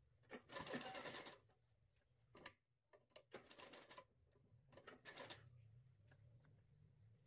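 Faint sewing machine stitching in several short runs with pauses between them, the longest run about a second in, as pleats are stitched down one at a time.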